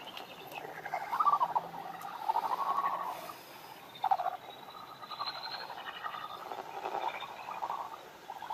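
Faint, irregular animal chirps and crackly clicks, several short calls scattered through the few seconds, with one louder call about four seconds in.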